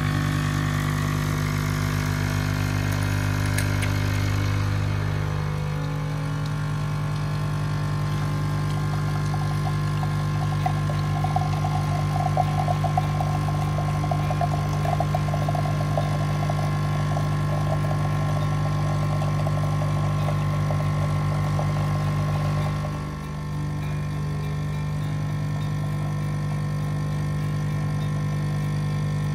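Krups capsule coffee machine's pump buzzing steadily as it brews coffee into a glass mug, with a crackling hiss of the coffee stream joining in for several seconds midway. The buzz dips briefly about 23 seconds in, then carries on.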